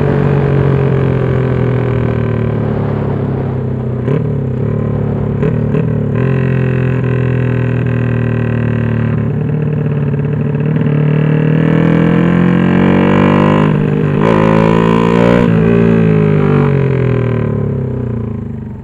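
Honda XRM fi's single-cylinder four-stroke engine, bored to 62 mm, heard from the bike while riding. Its pitch sinks slowly as the revs come down, climbs under throttle about twelve seconds in, then falls away again. It pulls cleanly without bogging on the racing ECU's map 8.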